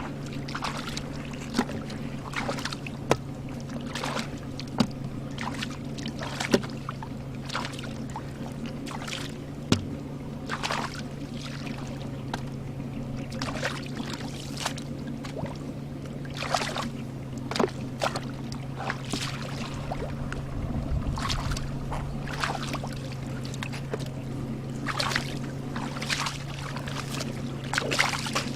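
Water splashed and sloshed by hands working through shallow water in a series of irregular short splashes, over a steady low hum.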